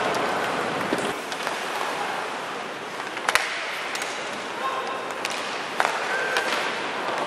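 Ice hockey game sound: arena crowd noise and skates on ice, easing off slightly, broken by a few sharp clacks of sticks on the puck, the loudest about three seconds in and near six seconds.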